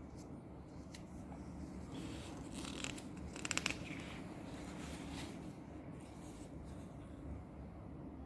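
Quiet room tone with faint handling noises: light rustles and scattered clicks, with a quick run of small clicks about three and a half seconds in.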